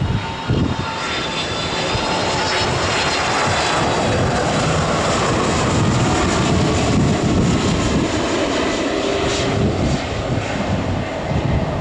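Airbus A310 airliner on final approach passing close by, its jet engines running with a steady rush and a high whine that slides down in pitch as it goes past. The sound swells to its loudest midway and eases near the end as the plane moves away.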